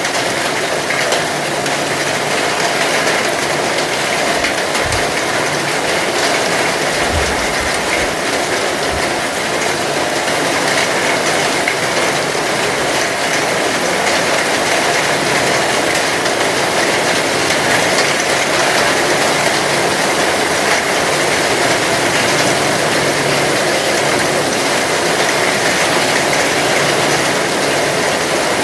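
Heavy rain falling steadily, a dense, even hiss of drops, with a few brief low thumps in the first ten seconds.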